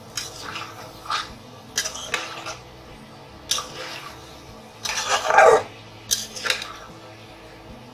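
A spatula scraping and knocking against a stainless steel pot as it stirs chunks of cauliflower and potato, in a series of short irregular strokes. The longest and loudest scrape comes about five seconds in.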